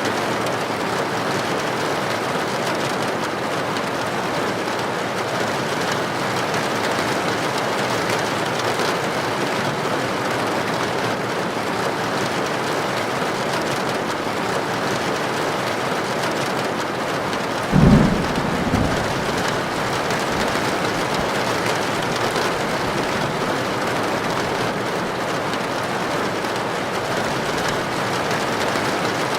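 Heavy rain falling steadily on a tin roof, with a short, loud clap of thunder a little past halfway, followed by a smaller one.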